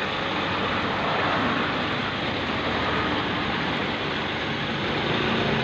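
Aquarium aeration: a steady rushing hiss of air bubbles rising through the tank water, with a low steady hum beneath.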